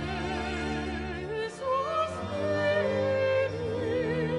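Slow classical background music in an operatic style: a held melody with strong vibrato over sustained low accompaniment.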